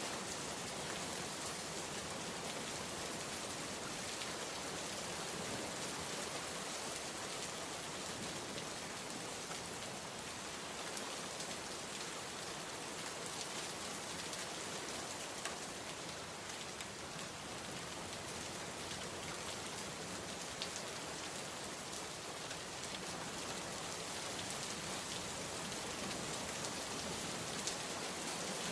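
Steady rain falling on a surface, an even hiss with scattered drops ticking through it.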